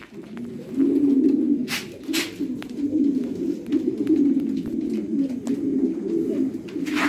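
King pigeon cooing in low, rolling, almost unbroken coos, with two brief swishes about two seconds in.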